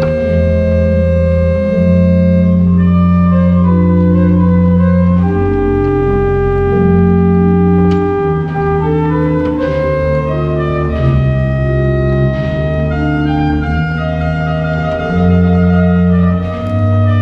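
Pipe organ playing slow, full chords over held bass notes, the chords changing every second or two; loud throughout.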